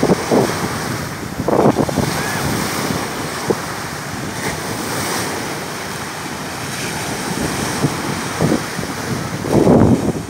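Small waves washing onto a sandy beach, with wind buffeting the microphone in gusts, strongest about a second and a half in and again near the end.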